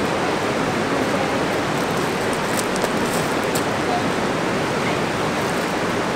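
Steady rush of a shallow, rocky river running over stones.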